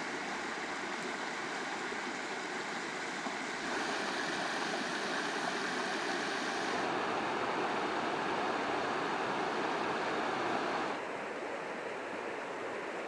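Rushing water of a rocky mountain river, a steady hiss-like rush with no distinct events. It gets louder about four seconds in, where a small cascade tumbles over rocks into the river, and drops back about eleven seconds in.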